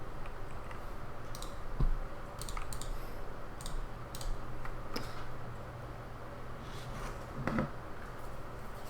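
Computer keyboard keys and mouse buttons clicked at an irregular, unhurried pace, with one louder knock about two seconds in, over a low steady hum.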